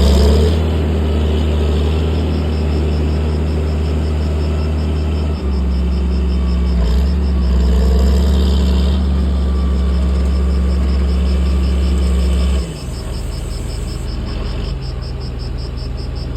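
John Deere 8420 tractor's six-cylinder diesel engine running at steady revs. About thirteen seconds in, its note drops lower and quieter as the engine slows.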